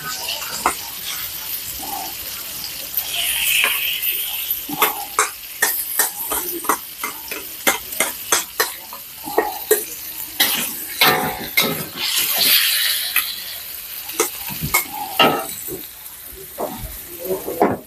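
Marinated pork sizzling as it drops into a hot wok with fried garlic, while a metal spoon scrapes and clinks against a steel bowl, many quick irregular clinks, pushing the meat out.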